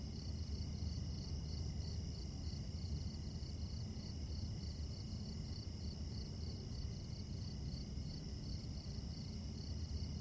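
Night-time cricket chorus: crickets chirping in a steady, even pulse of about four chirps a second, over a low steady background rumble.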